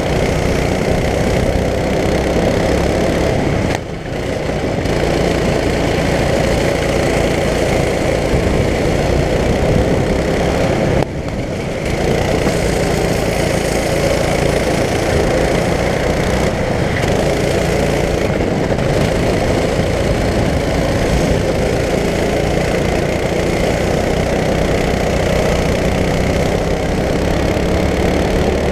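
Racing go-kart's engine running hard, heard from the kart itself, with two short drops in level about four and eleven seconds in.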